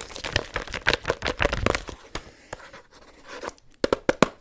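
Irregular clicking and clattering of a computer keyboard and mouse in use, with quick runs of keystrokes densest in the first two seconds.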